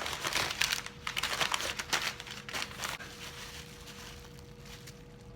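Packing material crinkling and rustling as a shipping box of Blu-rays is opened and unpacked. It is busy and crackly over the first three seconds, then quieter handling.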